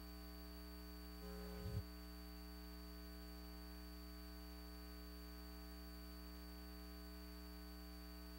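Steady electrical hum with a faint hiss, the hum and noise floor of the recording chain between program segments. There is one short faint noise about a second and a half in.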